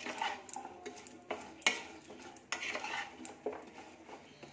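Wooden spatula scraping and knocking against a nonstick kadai as cauliflower florets are stir-fried over a high flame, in irregular strokes.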